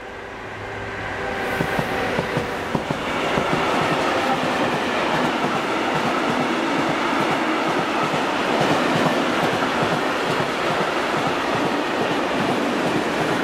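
Freight train of tank wagons passing at speed, led by a Siemens Vectron electric locomotive with a class 185 behind it. The locomotives' hum grows louder over the first few seconds, with several sharp wheel knocks as they pass, then the wagons give a steady rumble and clatter over the rails.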